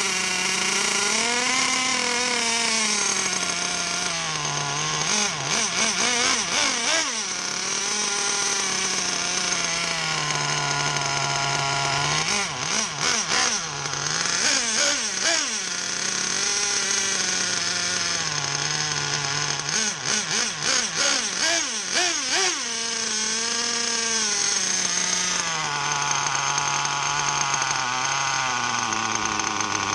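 HYPER 28 two-stroke nitro engine in an RC buggy running while its three-needle carburettor is being tuned, the engine speed slowly sagging and rising. Several bursts of quick revving come in between.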